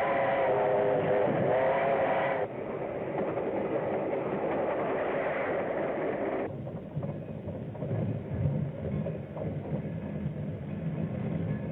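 Steam train running on the rails, its whistle sounding with a wavering pitch for the first two seconds or so, then the running noise alone; about six and a half seconds in it drops to a quieter rumble with scattered knocks.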